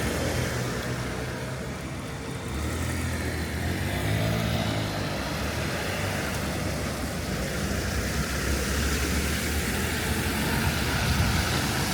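Road traffic: motor vehicle engines running close by, their pitch shifting briefly between about two and five seconds in, over a steady hiss.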